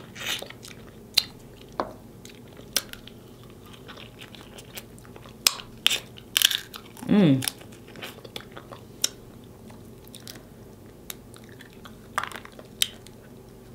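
Close-miked eating of snow crab and lobster meat: chewing and sharp, scattered lip smacks and clicks. There is a short falling 'mm' from the eater about seven seconds in.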